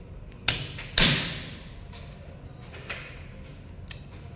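A few sharp knocks and clicks from an Ethernet cable being handled at a network switch. The loudest comes about a second in and has a short ringing tail, and lighter clicks follow near the end.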